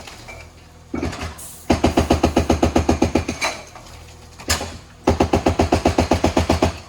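Hydraulic breaker on a JCB backhoe hammering in two runs of rapid blows, about ten a second, each run lasting a second and a half, with the machine's engine running in the pauses between.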